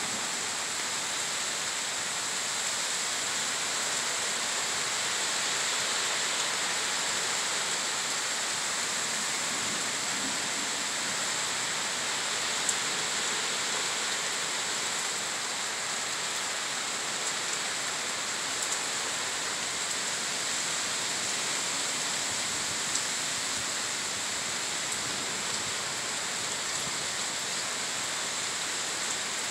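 Heavy thunderstorm rain pouring steadily: a dense, even hiss with a few sharper ticks here and there.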